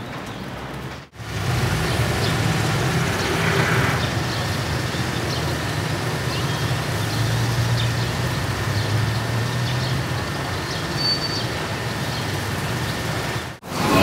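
Steady low rumble and hiss of outdoor background noise, with a few faint short high chirps. It drops out briefly about a second in and again just before the end.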